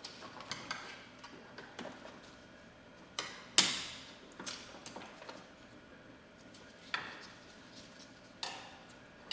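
Screwdriver and metal hose clip on a coolant hose clicking and tapping as the clip is pried off, in irregular small clicks with one louder metallic clank about three and a half seconds in.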